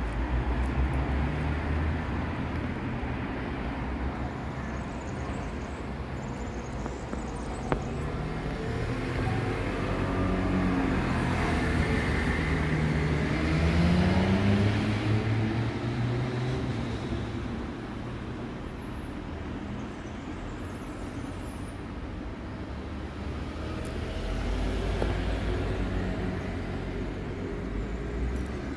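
Low, steady rumble of road traffic, with one vehicle's engine rising in pitch and growing louder around the middle. One sharp click about a quarter of the way in.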